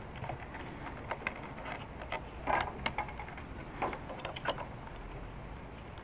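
Scattered light clicks and taps of plastic parts being handled and fitted by hand into the opened handle housing of a Ryobi miter saw, including its trigger switch and wire connectors.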